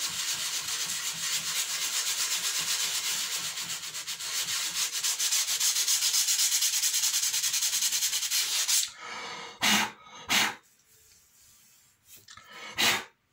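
Sanding block rubbed by hand over a glued joint in a thin wooden bridge side: a very light sanding to take off high spots. Quick back-and-forth rasping strokes run steadily for most of the time, then give way near the end to a few separate single strokes with quiet between them.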